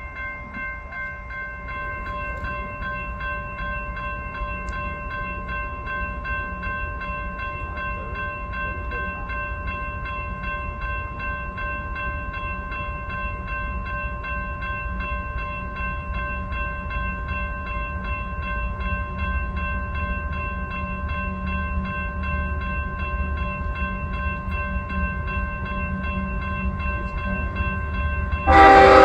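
Grade-crossing warning bell ringing steadily over the low rumble of an approaching freight train, which slowly grows louder. Near the end, the lead locomotive's K5HL five-chime air horn starts a loud blast for the crossing.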